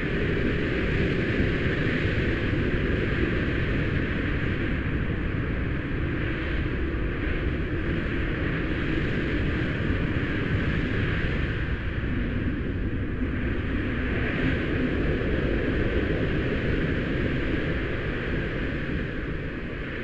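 "Wind Grumbling" horror wind sound effect: a steady low rumble of wind with a hiss above it, swelling and easing slowly, then starting to fade near the end.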